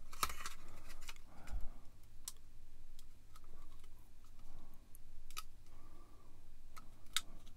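Light clicks and taps of hard plastic as a white styrene strip is fitted to a grey plastic model kit hull by hand, with soft rubbing of fingers on the parts between the scattered clicks.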